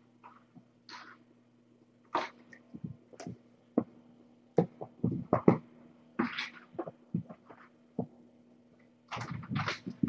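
Irregular short snuffles, rustles and soft thumps from cats and kittens moving about in their pen, over a steady low electrical hum.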